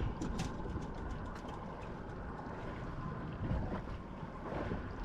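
Steady wind buffeting the microphone over sea noise around a small boat, with a few light clicks in the first half second.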